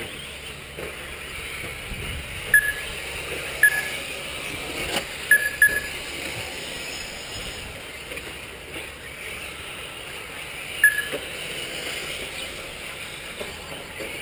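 Radio-controlled 4wd short course trucks running on the track as a steady background noise, with five short high beeps from the lap-timing system as cars cross the line, two of them in quick succession about five seconds in.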